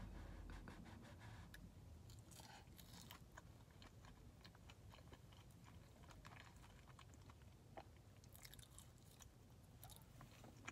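Faint, close chewing of takoyaki (fried octopus balls), with soft wet mouth clicks and smacks.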